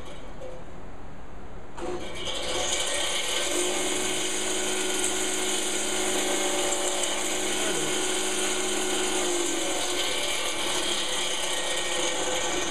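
Power drill boring into a hardened steel Nicholson file with a Rodman tungsten-carbide-tipped bit, a steady grinding chatter of the bit cutting the steel. The sound fills out about two seconds in, and a steady whine sits over it through the middle.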